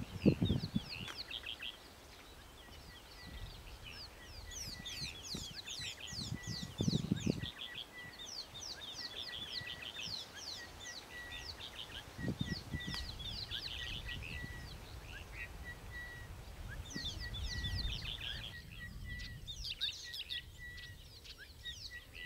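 Wild birds chirping busily, many quick falling chirps overlapping, over a steady string of short repeated high notes. A few brief low rumbles come and go, about seven and about twelve seconds in.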